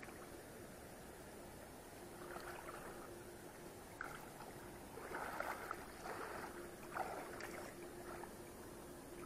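Water sloshing and splashing in several irregular bursts, loudest between about five and eight seconds in, with a sharp click about four seconds in.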